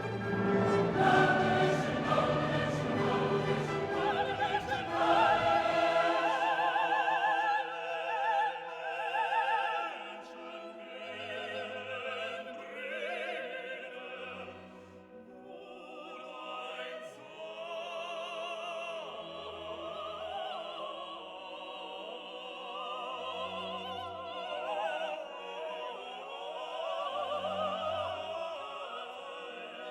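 Background music: operatic singing with choir and orchestra, thinning after about six seconds to a quieter passage with a wavering solo voice over sparse low notes.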